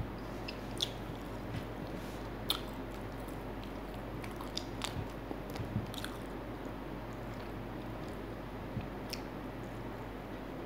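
Close-up eating sounds: a person chewing and biting fried chicken, with scattered short crisp crackles over a steady background hiss.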